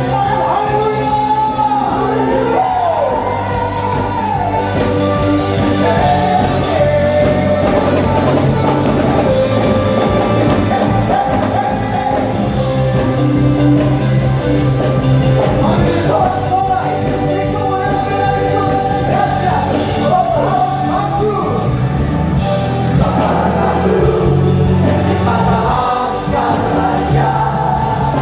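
Live worship band playing an Indonesian praise song, with singers over the band.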